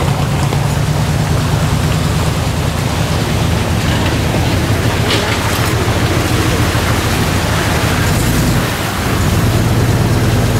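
Truck engine running at low speed with a steady low drone, under a constant rushing noise of wheels through mud and water; the drone eases briefly about nine seconds in.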